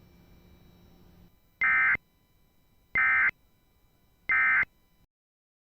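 Emergency Alert System end-of-message (EOM) signal: three short bursts of screechy digital data tones, each under half a second with about a second between them, marking the end of the alert.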